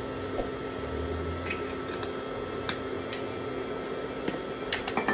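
Induction cooktop running under a pan as the oil heats: a steady electrical hum with a high whine and cooling-fan noise. A few light ticks sound over it, several close together near the end.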